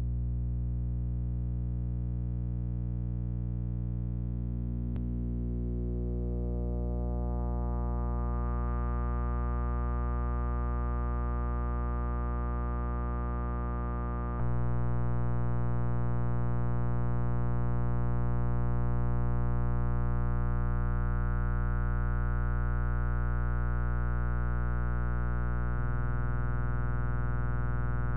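Oscilloscope-music synth tone generated in vvvv with VAudio: a steady low pitched drone with many overtones, whose higher overtones swell in over the first several seconds. It steps up in loudness about halfway through and changes colour near the end. Its left and right channels are the signal that draws the morphing vector figure on the oscilloscope display.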